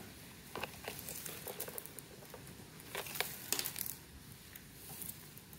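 Stiff plastic basket-weaving wire strips rustling and clicking in scattered short crinkles as they are threaded between the handle wires and pulled tight.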